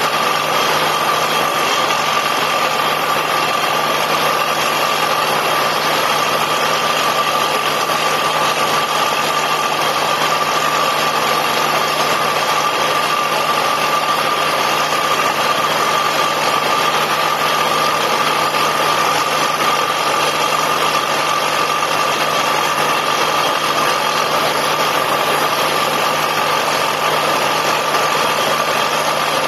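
Borewell drilling rig running steadily: a constant loud machine noise with a steady whine over it, no change in pace.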